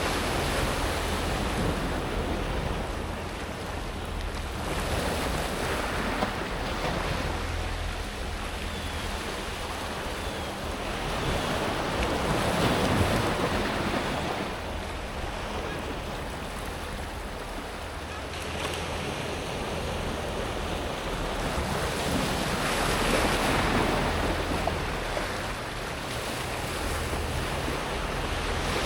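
Small sea waves breaking and washing up a pebble beach, the water rolling the smooth stones as it runs back. It comes in slow surges that swell and fade every several seconds.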